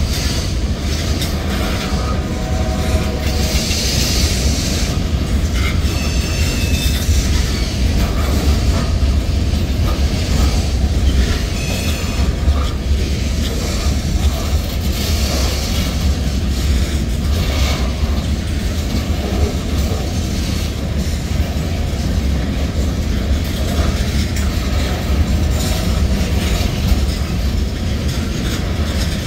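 Freight cars of a passing train rolling by: a loud, steady rumble of steel wheels on rail with clicking over the rail joints and a few short wheel squeals.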